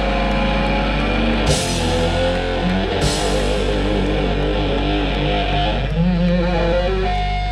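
Rock trio playing loud live: heavily distorted electric guitar with wavering, bending notes over bass and drums, with crash cymbal hits about a second and a half in and again at three seconds.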